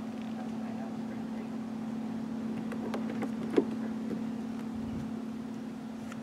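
Steady hum in the car's cabin, with a few light clicks and one sharp tap about three and a half seconds in as a hand handles the textured plastic door trim and pull handle.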